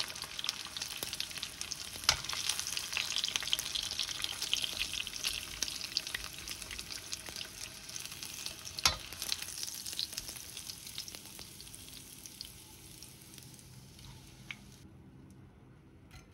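Breaded pork cutlets (donkatsu) sizzling and crackling in shallow oil in a frying pan, with two sharp clicks, about two seconds in and again near nine seconds. The sizzle dies down over the last few seconds as the golden cutlets are lifted out of the oil.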